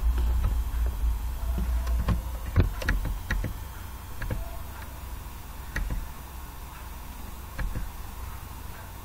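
Scattered, irregular clicks of a computer mouse and keyboard keys as edits in Blender are undone, over a steady low hum.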